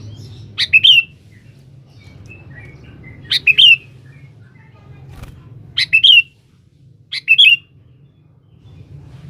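Sooty-headed bulbul (kutilang) calling to a rival: four loud, short phrases of sharp, clear notes about every two and a half seconds, with softer chirps between them. A faint low hum runs underneath.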